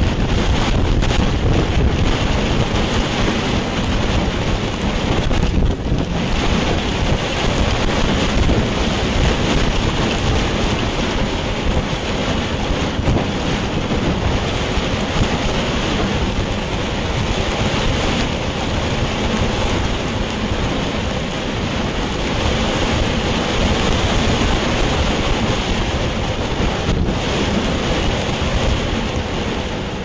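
Heavy rain and strong wind, with the wind buffeting the microphone: a steady, loud rush of noise.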